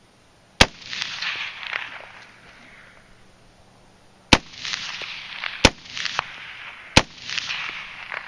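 Four shots from a mud-covered 5.56 mm AR-15 rifle fired one at a time: one a little after the start, then three more about a second and a half apart. Each crack is followed by a long echo that dies away over a second or so.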